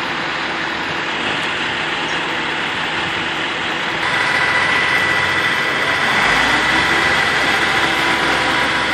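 Utility bucket truck's engine running steadily, a dense even hum. About four seconds in it gets a little louder and a thin, steady high whine joins it.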